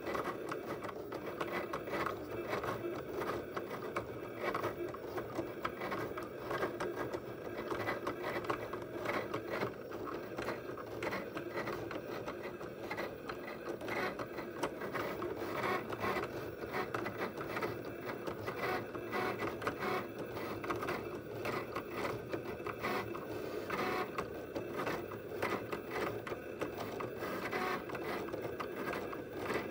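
A Cricut Explore cutting machine cutting a sheet of paper on its mat. The carriage motors whir in quick, irregular starts and stops as the blade head darts back and forth and the rollers shift the mat.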